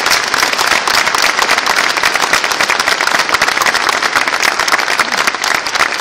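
Audience applause: many hands clapping steadily in a dense, continuous patter.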